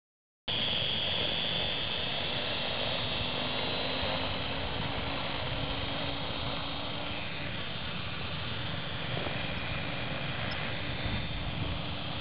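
Electric RC helicopter (Align T-Rex 450-class) hovering, loaded to about 1300 g with camera gear: a steady whir from its 360 mm main rotor blades with a high motor and gear whine over it, starting about half a second in.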